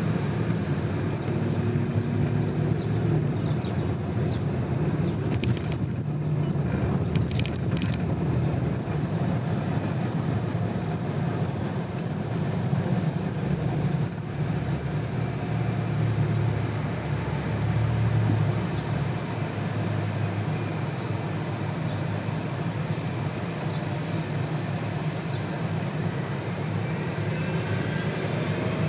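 Steady road noise of a car driving: a low hum of tyres and engine with a constant rushing noise over it. A couple of brief ticks come about six and seven seconds in.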